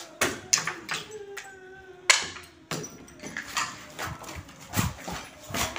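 Repeated knocks and clatters on rubble and broken glass, over a drawn-out wailing voice that slowly falls in pitch.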